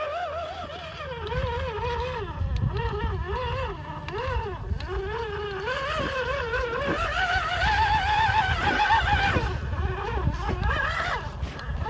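Electric motor and gear train of an RGT EX86100 V2 RC crawler whining, the pitch wavering up and down with the throttle, climbing higher about two-thirds of the way through and then dropping away. Under it runs a low rumble of the tyres churning through mud and water.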